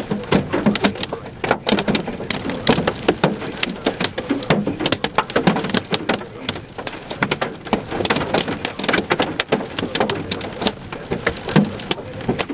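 Hail and rain pelting the car's roof and windows, heard from inside: a dense, irregular clatter of sharp hits, many a second.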